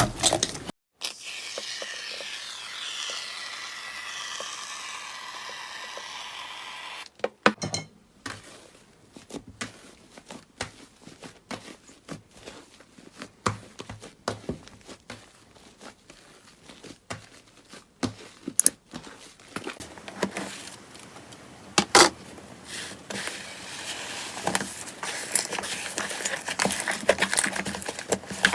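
Slime being squeezed and poked by hand: a steadier, smoother stretch of squishing for the first several seconds, then scattered crackling clicks and small pops, a few of them sharper and louder.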